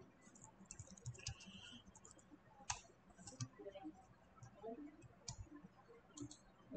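Faint, scattered keystroke clicks of a computer keyboard being typed on.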